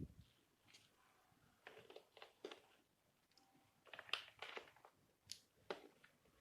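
Faint rustling and light clicks of board game pieces being handled: cardboard tokens and packaging picked up and set down. The handling comes in short clusters about 2 and 4 seconds in, with a few single sharp ticks near the end.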